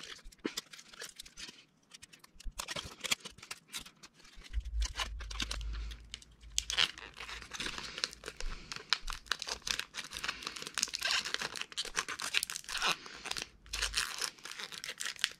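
Sticky tape being pulled off the roll and torn, mixed with crinkling and clicking as plastic drinking straws and cardboard are handled during assembly of a straw model bridge.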